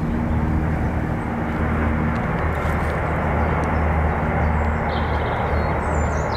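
A steady, low engine drone with a constant hum. A few short bird chirps come about five seconds in.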